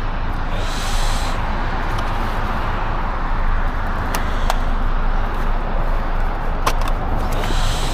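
Steady vehicle and road noise, a constant low rumble with a few short clicks and two brief hisses.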